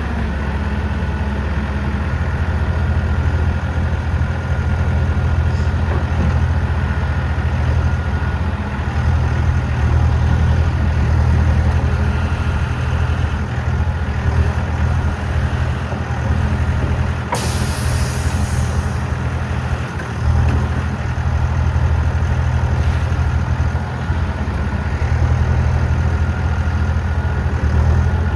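Diesel engine of a 2006 Terex backhoe loader running steadily, its loudness swelling a little now and then. A short hiss cuts in about two-thirds of the way through.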